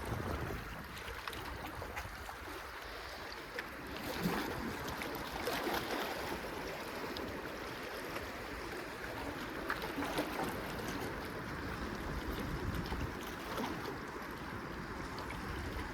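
Steady outdoor water and wind noise, with a few faint ticks scattered through it.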